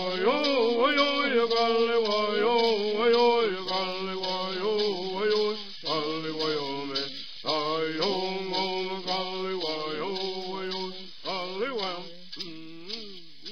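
Traditional Yuman bird song: male voices singing over a steady shaken rattle beat. Near the end the singing breaks into short falling phrases and fades.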